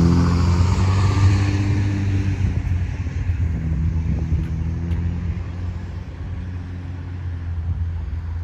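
A motor vehicle's engine running, its sound slowly fading over the few seconds as it moves away.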